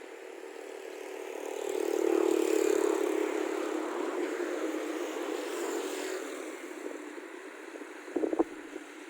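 A motor vehicle's engine passing close by, growing louder to a peak about two seconds in and then fading away. A brief clatter of knocks comes about eight seconds in.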